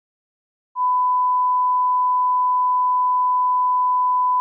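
Electronic beep tone, one pure steady pitch of the kind used as a censor bleep, starting under a second in after a moment of dead silence and held without change.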